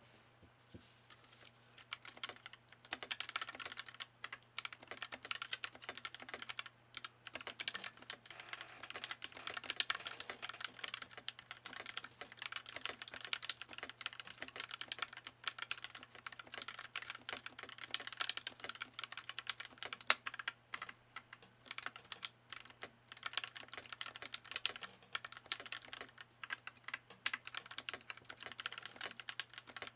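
Typing on a freshly built TMOv2 40% custom mechanical keyboard with a polycarbonate case and POM Jelly keycaps: a fast, continuous clatter of keystrokes that starts about two seconds in.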